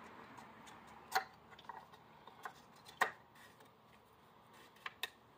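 A handful of scattered sharp clicks and taps as the oil filler cap is put back on the Mercedes M113 V8 and the engine bay is closed up. The loudest come about a second in and about three seconds in.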